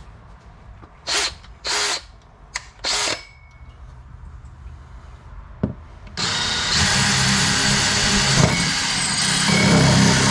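DeWalt 20V Max XR cordless drill with a 1¾-inch hole saw: three short bursts of the drill about a second in, then from about six seconds in a loud, steady run as the hole saw cuts into the boat's fiberglass.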